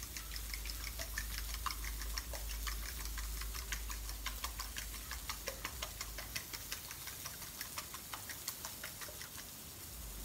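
Fork beating eggs in a ceramic bowl: quick, even clinks of the fork on the bowl, about four a second, that stop near the end.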